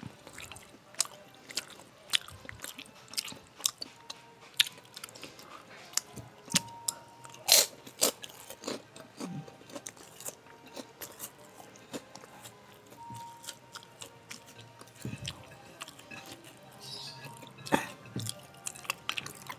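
Close-miked eating sounds of a person eating rice with her hands: chewing and wet mouth and lip smacks, heard as a string of sharp, irregular clicks. There are louder smacks about seven and a half seconds in and near the end.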